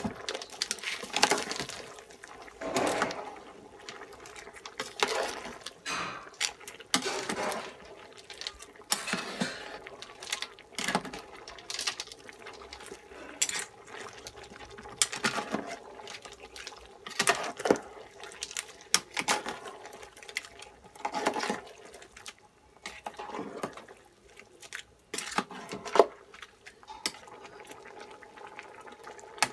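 Metal spoon stirring a pot of soup, scraping and clinking against the pot with the liquid sloshing, in irregular strokes every second or two. One clink near the end is louder than the rest.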